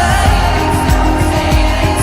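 Background music with a steady beat and singing.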